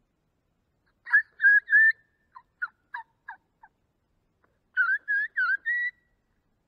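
A diaphragm mouth call blown in a wild turkey kee-kee run: three clear whistled kee notes about a second in, then a string of short yelps that break downward in pitch, then four more whistles climbing higher near the end.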